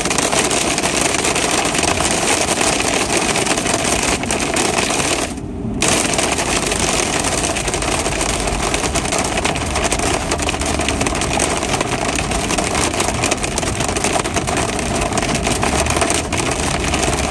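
Hail pelting down hard: a dense, continuous clatter of countless small ice impacts. The clatter briefly drops out for about half a second some five seconds in.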